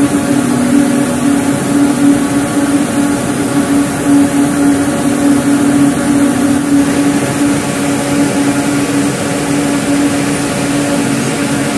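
Compact ring spinning frame running at speed: a loud, steady mechanical drone with a strong constant hum over an even rushing noise.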